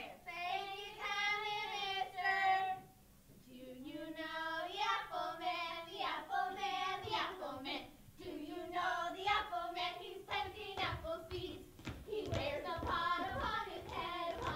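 Voices singing, with long held notes that waver in vibrato and a brief break about three seconds in before the singing goes on.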